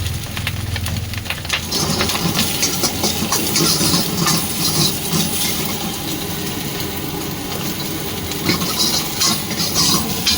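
Egg fried rice frying in a wok over a gas burner at a street stall. The burner runs with a low steady hum, and from about a second and a half in a dense sizzling hiss rises, broken by many short metallic strokes of the spatula against the wok.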